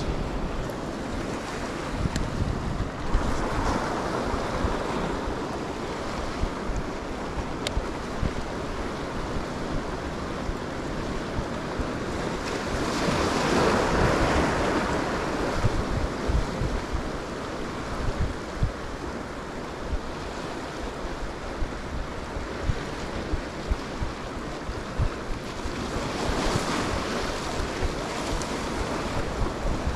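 Ocean surf washing in, each wave swelling and fading about every twelve seconds, with wind rumbling on the microphone.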